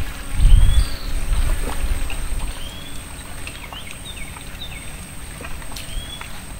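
Small birds giving short whistled chirps, a handful of quick rising and falling notes scattered through, over a steady high-pitched whine. A low rumble is loudest in the first two and a half seconds.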